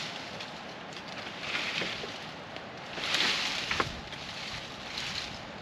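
Wind gusting through leafy brush and trees, rising in two swells each about a second long, with a couple of faint cracks near the second.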